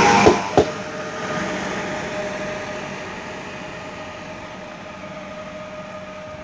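Pesa Elf 27WEb electric multiple unit passing close: the end of the train rushes by with two sharp wheel clicks over rail joints within the first second, then a steady whine as the train draws away and slowly fades.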